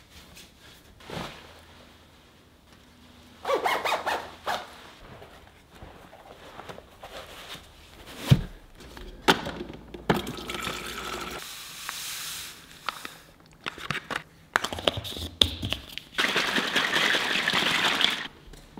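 A run of household handling sounds with knocks and clicks: a refrigerator's door dispenser running water into a plastic bottle about halfway through, then a plastic drink bottle shaken hard near the end.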